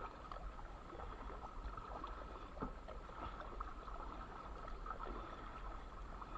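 Kayak paddle strokes on calm water: the blades dipping in with soft, irregular splashes and drips. A steady thin high tone runs beneath.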